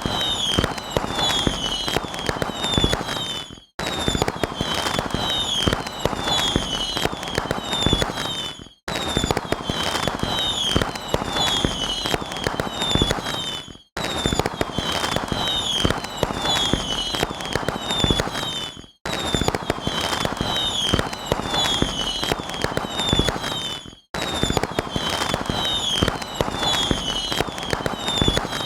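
Fireworks sound effect: a dense run of crackling bangs and pops with short, high falling whistles over them. The same stretch of about five seconds repeats as a loop, broken each time by a brief drop to silence.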